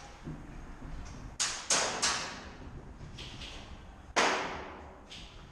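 Several sharp shots at irregular intervals, each trailing off in a fading echo, with the loudest about four seconds in: airsoft guns firing during a game.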